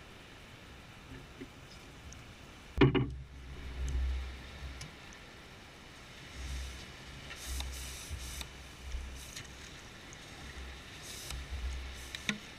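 Ghost shrimp pump being worked in wet beach sand. There is a sharp knock about three seconds in, then intermittent wet sucking and splashing as sand and water are drawn up and emptied out, over low rumbling.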